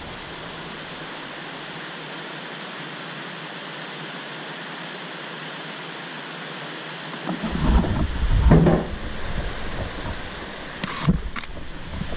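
Steady, even outdoor hiss. About seven and a half seconds in, low rumbling knocks of the camera and dog bed being handled break in, with a couple of sharp clicks near the end.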